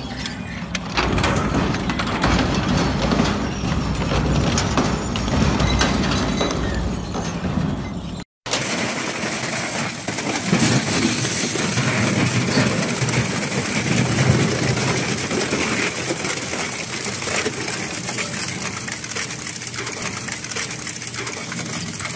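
Twin-shaft industrial shredder tearing up scrap metal: a continuous, dense crunching and clattering of steel being ripped apart between the cutter hooks. After a cut about eight seconds in, it shreds white sheet-metal panels, with a steady high whine running under the crunching.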